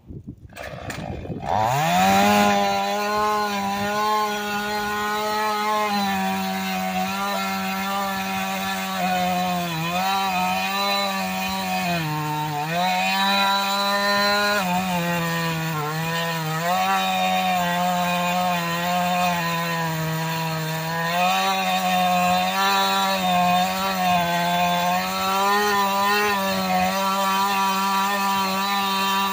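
Husqvarna 450 X-Torq two-stroke chainsaw revving up to full throttle about a second and a half in, then running flat out as it cuts through a thick log, its pitch dipping briefly a few times as the chain bites harder. Wood chips and sawdust fly from the cut.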